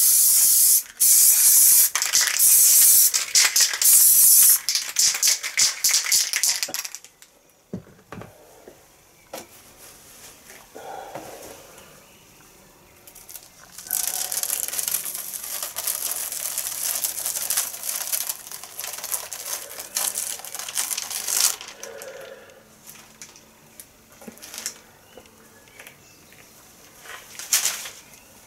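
Aerosol spray paint can spraying over a stencil in several loud hissing bursts for the first seven seconds. About halfway through, the stencil sheet is peeled up off the board with a long papery rustle.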